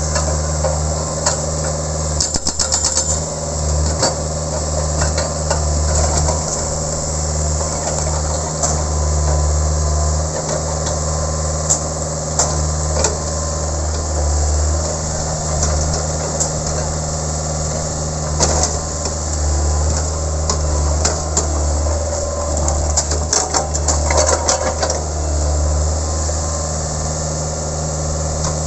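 Sunward 80E9 mini excavator's diesel engine running steadily, with short bursts of rapid hammering from its hydraulic breaker, about two seconds in and again near the end, and scattered single knocks in between.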